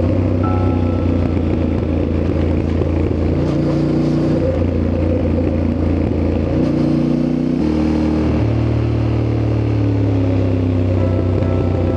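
Yamaha Ténéré 700's parallel-twin engine running as the motorcycle is ridden, its note stepping up and down in pitch a few times.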